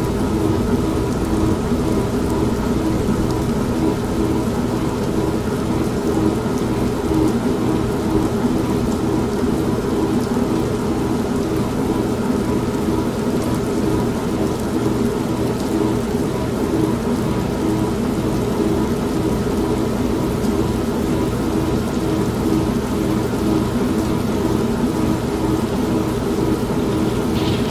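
An old manual washing machine running with a steady motor hum and churning, layered with continuous rain and a low thunder rumble.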